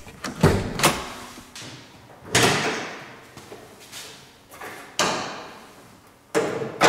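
Clicks of a Toyota Tacoma's hood release lever being pulled, then several clunks as the hood is unlatched, lifted and propped open. The loudest hit comes about two and a half seconds in, with another pair near the end, each fading out over about a second.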